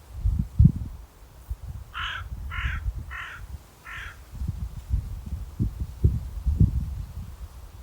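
A crow cawing four times in quick succession, about two seconds in, each caw short and harsh. Irregular low rumbles and thumps run under and around the calls and are louder than them.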